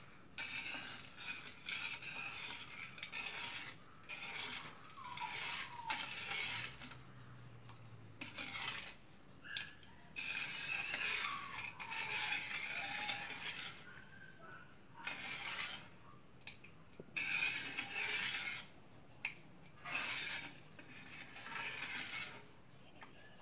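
A spoon scraping and stirring in a nonstick pan in repeated, uneven strokes, working undissolved sugar through coconut water to dissolve it.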